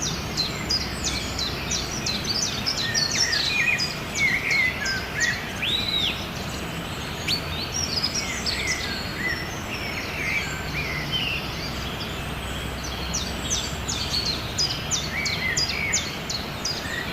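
Several small birds chirping and singing, with quick high chirps and short whistled glides, over a steady background hiss. The chirping is busiest in the first half, thins out in the middle and picks up again near the end.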